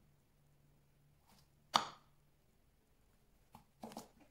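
Kitchen knife slicing through an Amanita calyptrata mushroom stem and knocking on a plastic cutting board: one sharp knock a little under two seconds in, then two or three quicker, softer knocks near the end.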